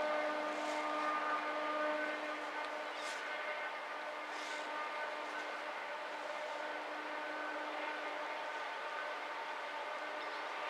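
Diesel locomotives of a Pacific National steel train working hard up a steep grade, a steady engine drone with an even hum.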